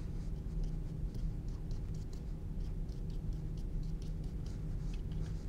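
Soft, irregular scratching and dabbing of a paintbrush laying acrylic strokes on canvas, over a steady low hum.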